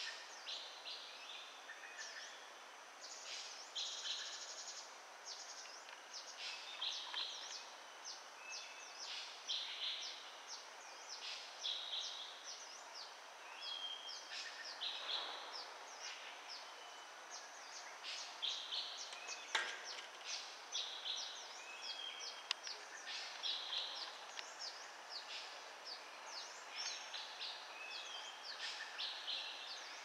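Wild birds chirping and calling in a dense outdoor chorus, with short high calls and quick trills overlapping one another without a break. A single sharp click comes about two-thirds of the way through.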